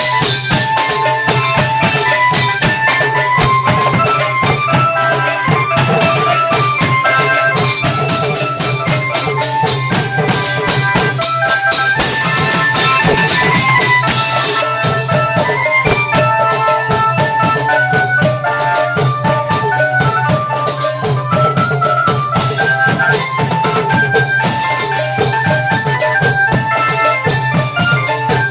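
Thai klong yao long-drum ensemble playing: dense, steady drumming with a melody of short notes over it and a constant low hum underneath.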